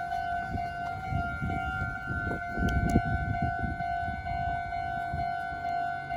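Japanese railway level-crossing warning bell ringing, an electronic tone pulsing at a quick, even pace, over low rumbling noise that swells around the middle.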